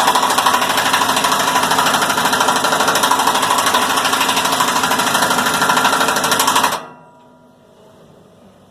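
A loud machine runs with a fast, even rattle, then cuts off suddenly about seven seconds in, while the baler's cylinder assembly is being worked up into place.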